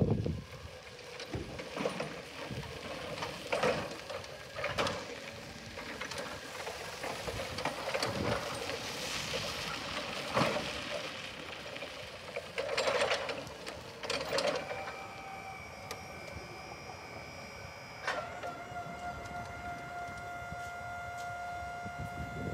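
Electric Crown forklift moving across the yard with irregular clunks and rattles. About two-thirds of the way through, its electric hydraulic pump starts a steady whine as the mast lifts, and the whine steps to a different pitch a few seconds later and holds.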